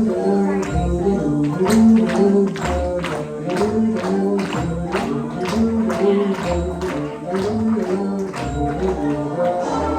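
Instrumental music: a melody played over a steady, evenly spaced tapping beat.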